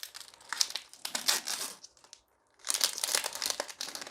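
Foil wrapper of a Magic: The Gathering set booster pack crinkling and rustling as it is opened by hand, in two spells with a short pause just before the middle.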